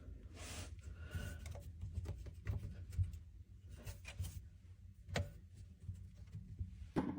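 Rubbing and scuffing handling noises with scattered sharp clicks and light knocks over a low rumble, the loudest knocks about three seconds in and near the end.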